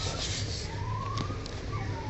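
A grackle calling: two short rising whistles over a steady low hum.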